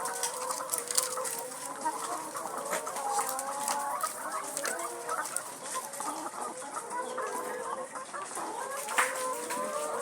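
A flock of laying hens clucking and calling continuously, many birds overlapping, with scattered sharp clicks.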